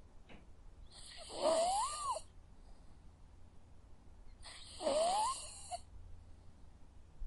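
A sleeping dog snoring, two breaths about three seconds apart, each with a high whistling squeak that rises and falls in pitch over the breathy hiss.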